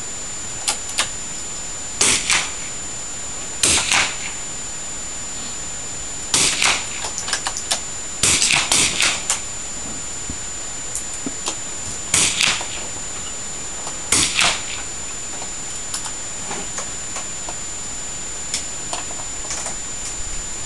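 Target rifles on a covered firing line: sharp cracks and metallic clicks in short clusters every couple of seconds, irregularly spaced, over a steady hiss.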